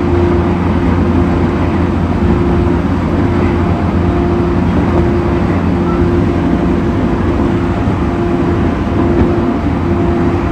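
An E231-1000 series commuter train car running, a steady low rumble with a humming tone on one fixed pitch that keeps cutting out and returning every second or so; this intermittent hum is the abnormal noise heard from this car.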